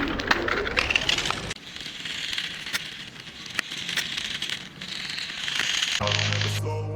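Crackling noise with scattered sharp clicks, louder for about the first second and a half and then fainter. Strummed guitar music starts about six seconds in.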